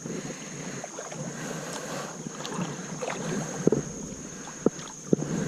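Kayak being paddled: water swishing and splashing from the paddles, with a few sharp knocks about two thirds of the way through and near the end. Light wind on the microphone and a thin, steady high tone run underneath.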